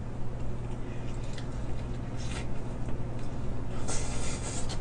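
Biting and chewing a sauced fried chicken drumstick: wet eating noises, with a short burst about two seconds in and a longer one near the end, over a steady low hum.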